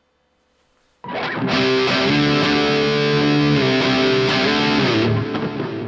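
Distorted electric guitar (a Gibson Les Paul through an Engl Fireball 25 amp) playing a short riff that starts suddenly about a second in and rings down near the end. The Dispatch Master reverb and delay pedal has all its knobs turned down, so the tone is essentially dry.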